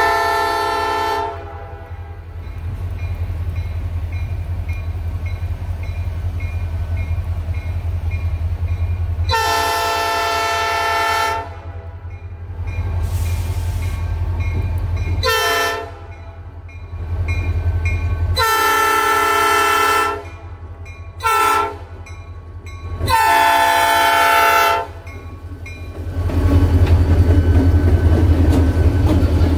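Diesel locomotive's air horn sounding six blasts, long and short, at a grade crossing, over the steady low rumble of its engine. The rumble grows much louder near the end as the locomotive reaches the crossing.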